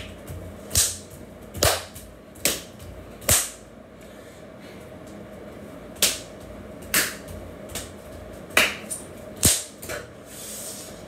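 Sharp percussive hits from a person dancing, in a steady beat of a little more than one a second: five hits, a pause of about two seconds, then six more, over a faint steady hum.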